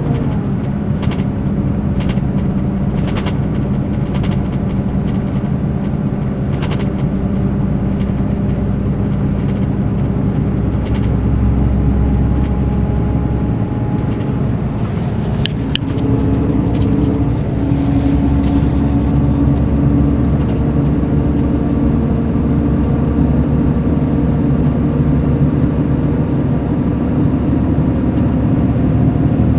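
Mercedes-Benz O500 RSD coach's diesel engine running steadily, with scattered light clicks over the first few seconds. About halfway through the engine note changes and settles onto a higher pitch.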